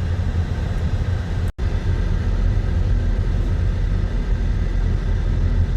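Steady low rumble of road and engine noise heard from inside a moving car. The sound cuts out for an instant about one and a half seconds in, then carries on unchanged.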